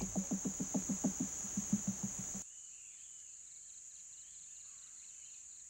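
Rapid, even series of soft taps, about seven a second, from a female great hornbill working the nest-hole entrance with her bill as she seals it with mud and droppings, over a steady high insect drone. About two and a half seconds in it cuts to a quieter scene: a faint fast insect trill with a few faint bird chirps.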